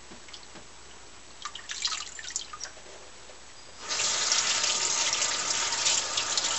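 A few small splashes of hands working in the water of a stainless-steel sink, then about four seconds in the kitchen faucet is turned on and water runs steadily into the sink.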